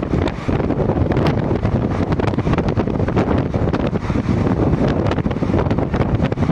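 Passenger train running at speed, heard from the coach's open doorway: steady rumble of the wheels on the rails with frequent short clicks of rail clatter, under heavy wind buffeting the microphone.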